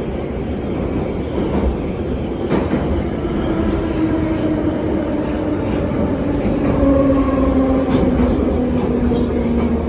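An 81-717/714 metro train running through a tunnel, heard from inside the car: a steady rumble of wheels on rails with a few clicks over rail joints. From about four seconds in, a motor whine slowly falls in pitch.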